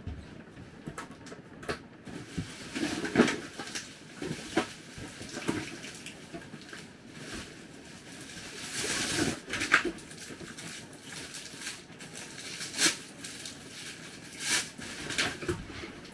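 Irregular knocks, thumps and rustling of someone moving about inside a camper trailer, handling cushions and bedding, with a longer rustle about nine seconds in.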